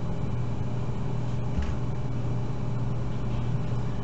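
Steady low hum with a faint hiss: background noise with no speech.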